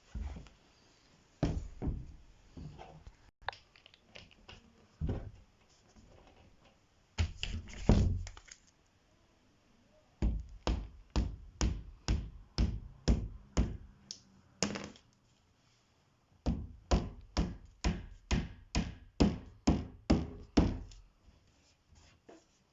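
Hammer blows on wood. A few separate knocks come first, then two quick runs of sharp strikes at about two a second.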